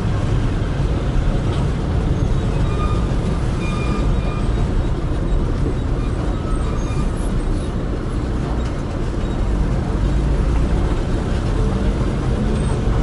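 Steady road rumble and engine noise of a moving vehicle in traffic, strongest in the low range, with a few faint short high tones about three to four seconds in.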